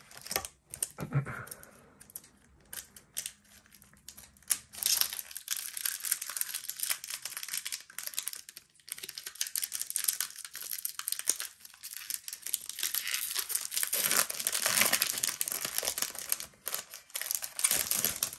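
Foil wrapper of a Pokémon Lost Origin booster pack crinkling as it is torn open at the top and the cards are pulled out. A few light clicks and taps come first, and the crinkling starts about five seconds in.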